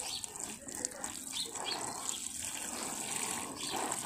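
Water showering steadily from a plastic watering can's rose onto loose soil in black plastic nursery bags.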